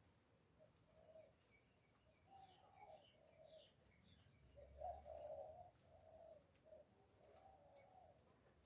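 Backyard hens making soft, low, repeated clucking and murmuring calls, faint throughout and a little louder from about halfway, with a few brief higher chirps and light ticks.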